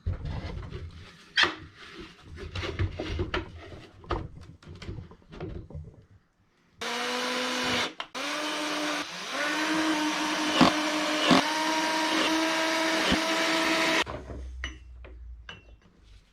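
Irregular knocks and clatter, then about seven seconds in a small lathe's electric motor is switched on. It stops and restarts within a second or two, and its hum rises in pitch as it spins up. It runs steadily with a couple of sharp clicks before being switched off near the end.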